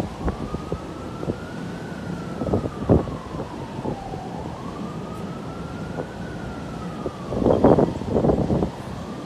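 An emergency-vehicle siren wailing, rising and falling in pitch about every four seconds. Strong wind gusts buffet the microphone over it, the loudest about three seconds in and again near the end.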